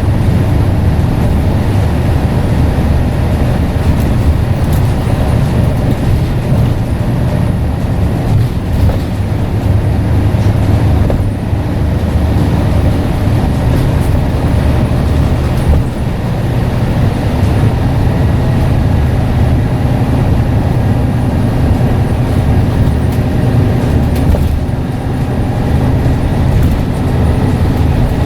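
Scania N94UD double-decker bus's diesel engine running under way, loud and steady with a deep drone, with a faint turbocharger whistle above it.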